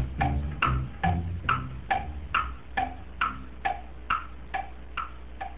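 Wood-block tick-tock rhythm closing out an Egyptian song, alternating higher and lower strokes about two times a second. The drums and bass drop out about two and a half seconds in, leaving the strokes alone and growing fainter.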